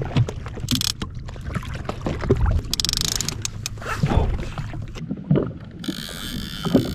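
Water sloshing and slapping against a jet ski's hull, with irregular knocks and short hissy stretches, while the rider is towed by a hooked bluefin tuna.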